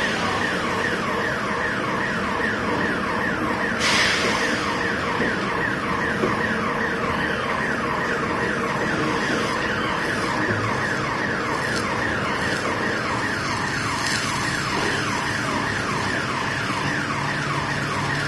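Electronic alarm sounding continuously, a falling tone repeating evenly a few times a second, over a steady hiss, with a brief louder burst of hiss about four seconds in.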